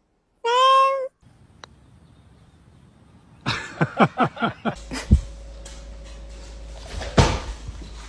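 A cat meows once, about half a second in. Later comes a quick run of about six short falling calls, and a single knock just after seven seconds.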